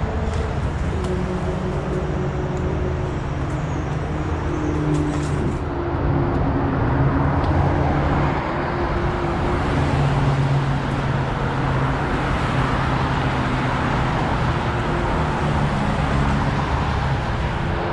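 Steady highway traffic noise: a continuous rush of tyres with a low, steady engine hum underneath.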